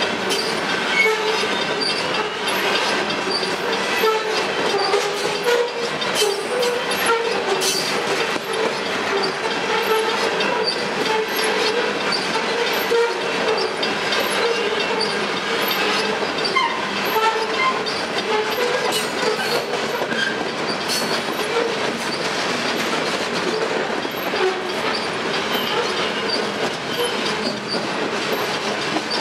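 Canpotex covered hopper cars of a potash freight train rolling past close by: a steady rumble of steel wheels on rail with scattered clicks and a constant wavering squeal from the wheels.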